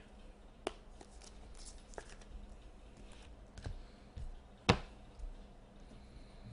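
2017-18 Upper Deck SP Authentic hockey cards being handled: a few faint clicks and taps as a stack is sorted by hand and set down on the table, with one sharper tap about three-quarters of the way through.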